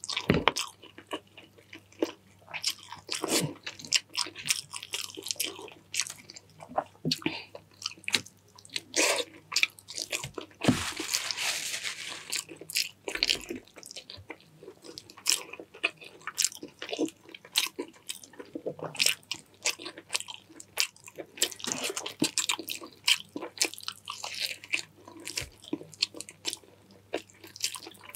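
Close-miked eating: a person chewing and biting food, with frequent irregular mouth clicks and smacks and a longer stretch of denser chewing noise about eleven seconds in.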